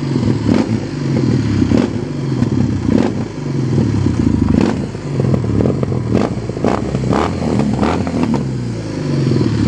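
Kawasaki W800's air-cooled parallel-twin engine revved in repeated throttle blips through its stock peashooter-style muffler with a new custom-cut tip, the pitch rising and falling several times. Sharp pops and crackles sound in between as the revs drop: the backfiring that the builder says a W800 always has to some degree.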